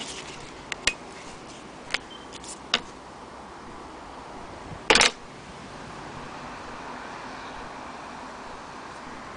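Light metallic clicks and taps of an antique Willcox & Gibbs sewing machine being handled, with one louder clatter about five seconds in.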